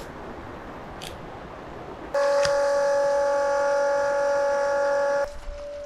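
Even rain-like hiss, then about two seconds in a loud, steady horn-like tone starts abruptly. It holds one pitch for about three seconds and cuts off suddenly, leaving a faint tone of the same pitch.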